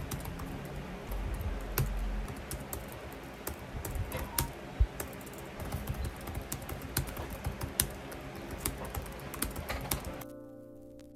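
Typing on a laptop keyboard: quick, irregular key clicks. They stop near the end, and background music comes in.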